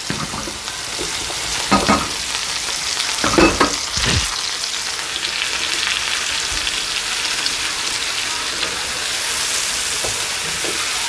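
Par-boiled baby potatoes going into a hot skillet of vegetables in butter and olive oil, sizzling steadily. A few knocks in the first four seconds, then an even frying hiss.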